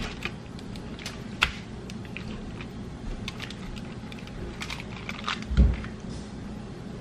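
Knife slicing a pocket into raw bone-in chicken breast on a foil-lined baking sheet: scattered small clicks and taps, a sharper tick about a second and a half in, and a dull thump about five and a half seconds in.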